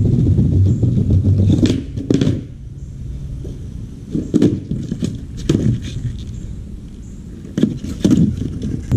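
Skateboard wheels rolling over brick pavers with a loud rumble. About two seconds in come sharp clacks and a scrape as the board hits a parking-block curb. Single knocks of the board follow every second or two over the next several seconds.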